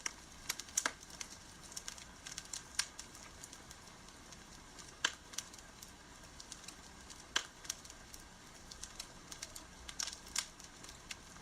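Wood campfire crackling: irregular sharp pops and snaps over a soft steady hiss, with a few louder snaps scattered through.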